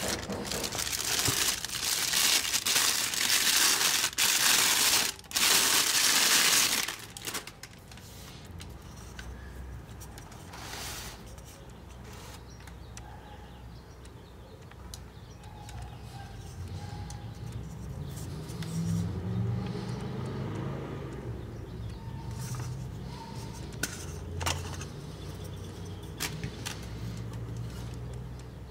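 Plastic wrapping bag crinkling loudly as a camera lens is pulled out of its box and unwrapped, for about the first seven seconds. After that comes quieter handling of the bare lens, with a few light clicks.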